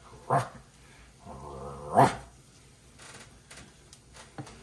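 Barking: a short bark, then a drawn-out whine that ends in a loud bark about two seconds in.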